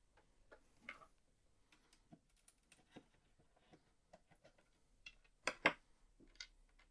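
Faint clicks and scrapes of a small flat screwdriver prying a RAM chip out of its socket on a Commodore VIC-20 circuit board, with a couple of louder clicks about five and a half seconds in.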